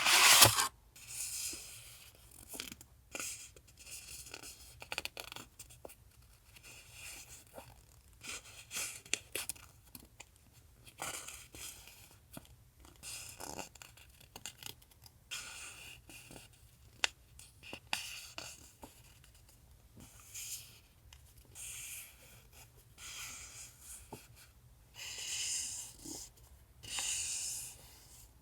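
Paper rustling and crinkling in short, irregular bursts, with scattered light taps and clicks: paper stationery items being handled as they come out of an envelope.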